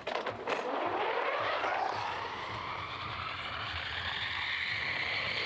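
Ski jumper's skis running down the frozen in-run tracks: a knock as she leaves the start bench, then a rushing hiss that rises in pitch over the first two seconds as she gains speed and then holds steady.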